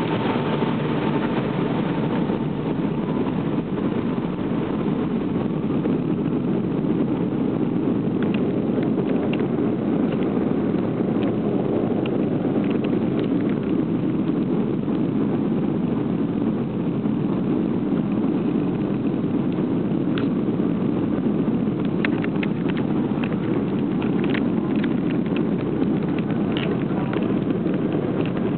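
Airliner engines heard from inside the cabin during takeoff: a steady, loud rumbling roar, with a few light clicks and rattles in the second half.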